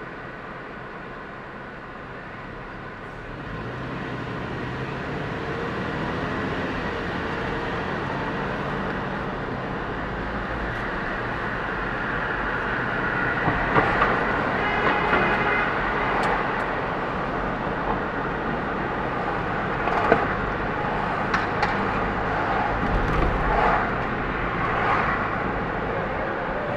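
Road noise of a car pulling away from a stop and driving through city traffic, growing louder about three seconds in, with a few brief sharp knocks later on.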